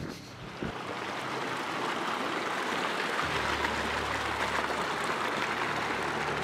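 Shallow rocky stream running over stones, a steady rushing and splashing of water. Low, held music notes come in underneath about three seconds in.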